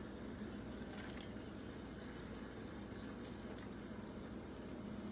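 Chicken legs sizzling in hot olive oil in a large pot, with a few faint soft clicks as sliced onions go in, over a steady low hum.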